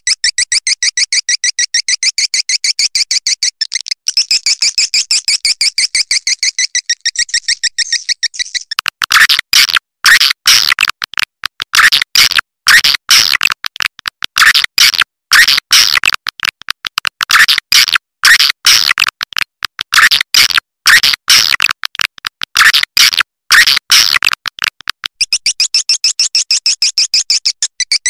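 Swiftlet lure call track of edible-nest swiftlet twittering: fast, even high-pitched chirps at first, switching about nine seconds in to louder, harsher clicking calls in short uneven groups, with the fast chirping returning near the end.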